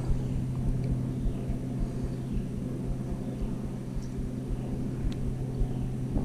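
A steady low mechanical hum, one constant pitch with an overtone, over an uneven low rumble like wind on the microphone.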